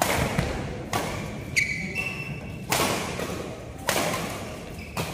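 Badminton rally: rackets hitting the shuttlecock, six sharp hits roughly a second apart, each with a short echo.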